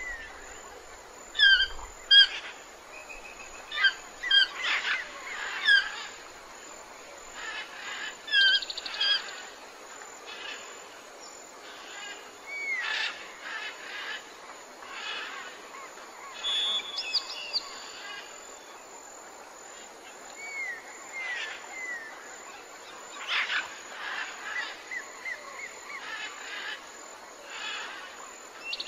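Wild birds calling: many short, sharp chirps and whistles, thickest and loudest in the first few seconds, then sparser, with a few arched and down-slurred whistles later on.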